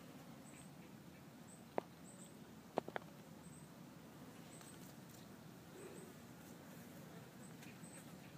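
Nearly quiet, with a faint hiss and four short sharp clicks: one at the start, one a little under two seconds in, and a close pair around three seconds in.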